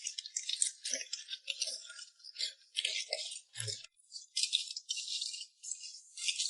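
Chopsticks tossing mantis shrimp in a bowl to work in a marinade, the shells giving a run of quick, uneven dry rattles and scrapes, with one soft knock partway through.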